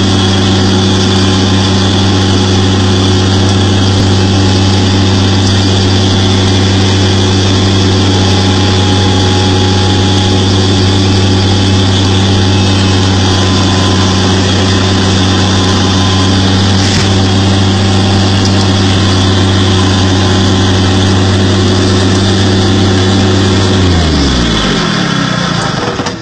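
An engine running loudly at one constant speed, then shut off about twenty-four seconds in, its pitch falling as it winds down to a stop.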